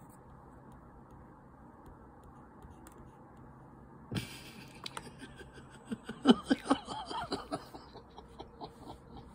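A sharp click, then a person laughing briefly in a quick run of short chuckles.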